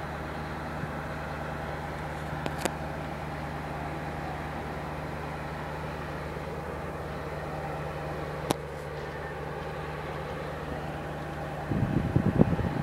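A rail vehicle's engine idling with a steady low hum, with two brief sharp clicks about two and a half and eight and a half seconds in. Near the end, irregular gusts of wind buffet the microphone over it.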